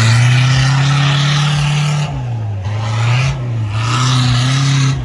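Off-road 4x4's engine revving hard under load, held high for about two seconds, then the revs dip and surge again several times.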